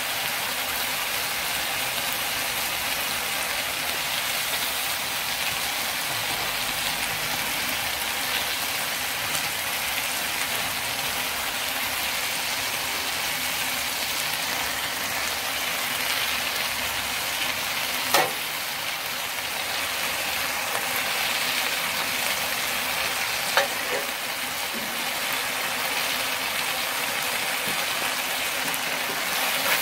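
Chicken livers and water spinach sizzling steadily in a hot metal wok during a stir-fry, with two sharp clacks of the metal spatula against the pan partway through.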